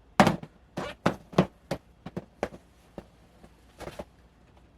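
Plastic storage bins being handled and opened: a run of about ten sharp, irregular plastic clicks and knocks from latches and lids.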